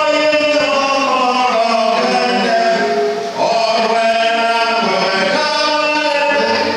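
Church congregation singing together in long, held notes, with a brief pause in the singing about three and a half seconds in.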